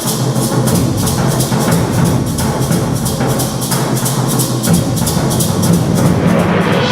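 Concert band playing a drum-driven passage: a rapid, even run of drum strokes and timpani over sustained low notes.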